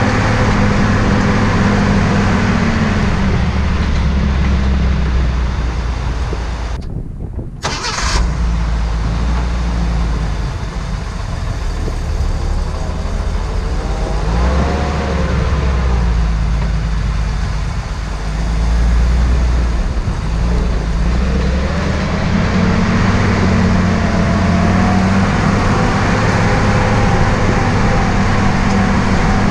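Jeep CJ5's engine running as it drives over rocky off-road ground, the engine speed rising and falling several times. The sound drops out briefly about seven seconds in.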